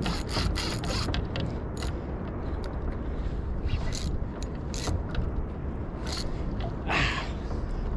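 Saltwater spinning reel cranked under heavy load while fighting a hooked fish, its gears running with irregular clicking and ratcheting. Steady wind rumble on the microphone underneath, and a louder rushing burst about seven seconds in.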